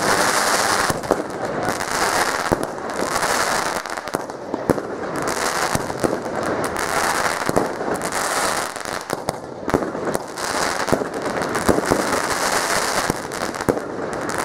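Fireworks going off at close range: a continuous hiss thick with rapid crackling and frequent sharp pops.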